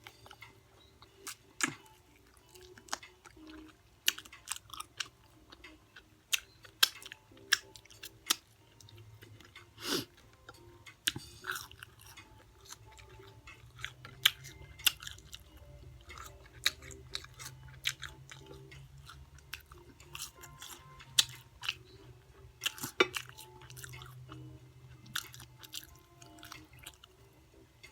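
Close-up chewing and crunching of crispy fried chicken, with irregular sharp crunches, the loudest about ten seconds in and again near the end.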